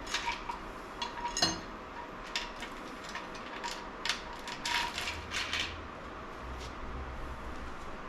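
Metal engine parts from a Nissan SR20DET being handled during its teardown, clinking against each other and against metal: one sharp ringing clink about a second and a half in, then a quick run of lighter clinks that stops about two seconds before the end.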